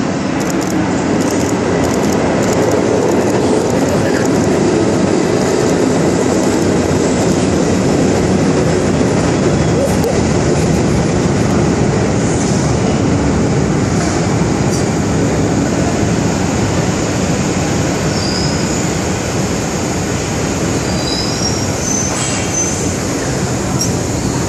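Trains running through the station: a heritage train led by a Metropolitan-Vickers electric locomotive, with a modern Underground train alongside. There is a steady rolling noise of wheels on rail, with quick clicks over rail joints in the first few seconds and high-pitched wheel squeal in the last third.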